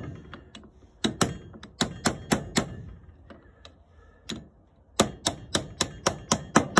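Ball-peen hammer tapping on a socket held against the outer race of a 6205 sealed ball bearing, driving it down into a mower blade spindle housing toward its seat. There is a group of sharp metallic taps about a second in and a couple of faint ones midway, then a quick run of about eight taps near the end, roughly five a second.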